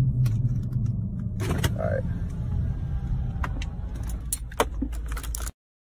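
Steady low rumble of a car driving, heard from inside the cabin, with a short vocal sound about two seconds in. Several sharp clicks and knocks follow in the second half, then the sound cuts off abruptly.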